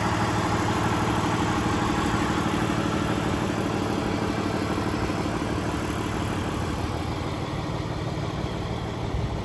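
Cummins ISB 6.7 L straight-six turbo-diesel of a Freightliner M2 truck idling steadily, growing slightly quieter toward the end.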